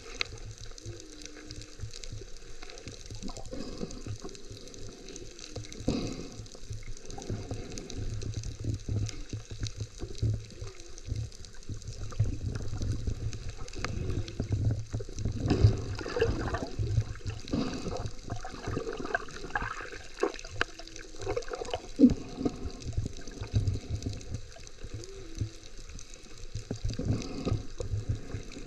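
Water sloshing and bubbling heard underwater, muffled and uneven, with a few sharper splashes.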